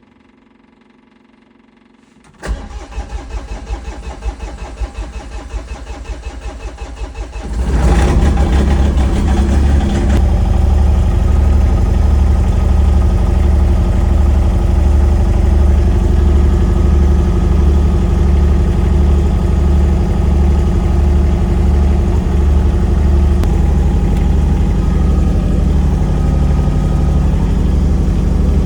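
A vehicle engine cranks over with a rapid pulsing for about five seconds, catches about eight seconds in, and settles into a loud, steady idle with a regular low throb.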